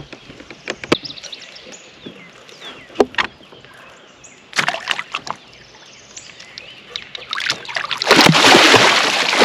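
Occasional sharp knocks of gear against a kayak hull, with faint bird chirps behind, then loud water splashing and sloshing against the kayak from about eight seconds in.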